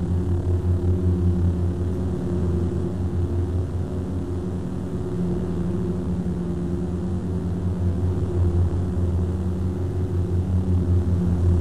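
Lightsaber sound effect: a steady low electric hum with a few higher overtones, its loudness pulsing quickly as the blades swing.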